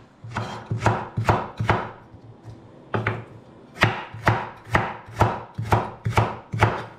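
Kitchen knife chopping carrots on a wooden cutting board: a steady run of sharp strokes, about two a second, with a short pause about two seconds in.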